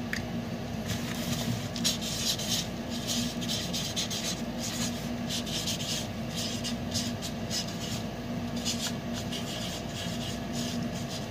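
A cardboard package being handled and shifted by hand: irregular rubbing and scraping that comes and goes, over a steady low hum.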